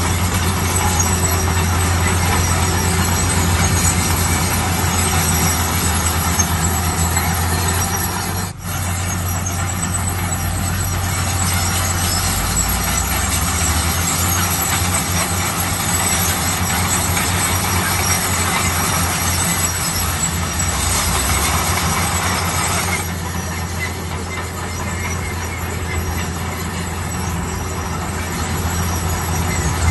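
Bulldozer's diesel engine running steadily with a deep hum, with the rough mechanical noise of the machine working. The sound dips briefly about a third of the way in.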